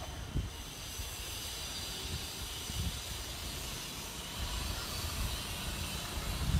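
Wind gusting against the microphone in irregular low buffets over a steady hiss.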